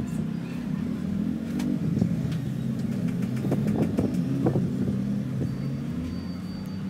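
A steady low engine rumble, like a motor vehicle running nearby, with a few light clicks and taps scattered through the middle.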